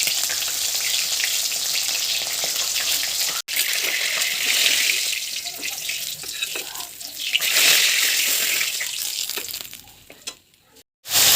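Broiler chicken leg pieces frying in hot oil in a pan, sizzling with dense crackles and spits as fat cooks out of the skin. It cuts out for an instant a few seconds in, then dies away near the end.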